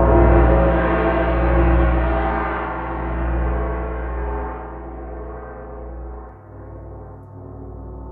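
A large gong struck once just before and left to ring out: a rich, shimmering tone that swells and fades as it slowly decays, its higher overtones dying away first and leaving a deep low hum.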